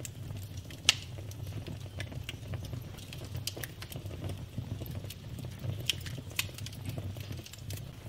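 Wood fire burning in a fireplace: irregular crackles and pops from the burning logs over a steady low rumble, with one sharp pop about a second in.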